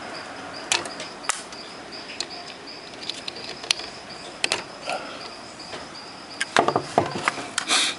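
Scattered light clicks and knocks of hands handling parts inside an opened amplifier chassis, growing into a louder cluster of knocks and rustling near the end as a hand comes up close to the camera. A faint, broken high-pitched tone runs underneath.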